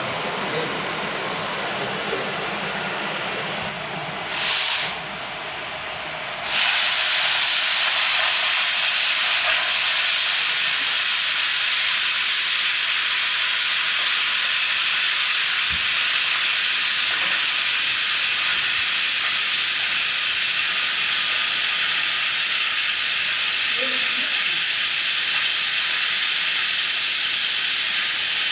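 Oxy-fuel gas torch hissing. A brief puff comes about four and a half seconds in. A little over six seconds in, a much louder, sharper hiss starts and holds steady: the cutting-oxygen jet of a gas cutting torch turned on to cut steel plate.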